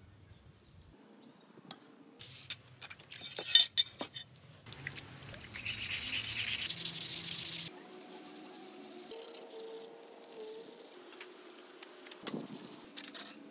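Hand work on bicycle parts: a run of clicks and knocks, then several seconds of rubbing, hissing noise in stretches, like sanding or scrubbing.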